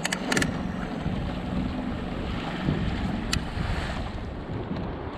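Wind buffeting the microphone over the wash of water around a kayak at sea, with a few sharp clicks near the start and another about three seconds in.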